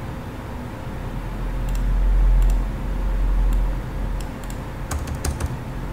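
Scattered clicks of a computer mouse and keyboard, with a quick cluster of clicks near the end. A low rumble swells and fades in the first half, over a steady background hum.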